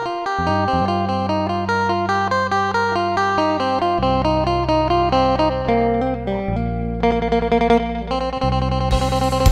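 Background music: a fast melody on an amplified plucked string instrument over held low notes, with drums coming in near the end.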